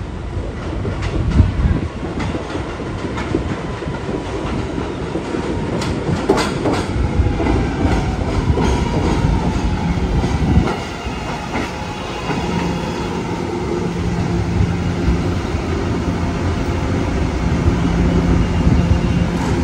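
A New York City subway train running on the rails, its wheels clacking over the rail joints under a steady rumble, with a few sharp clicks. A low steady hum joins about two-thirds of the way through.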